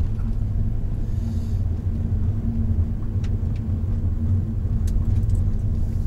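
Honda Odyssey RB3 minivan driving: a steady low rumble of engine and road noise.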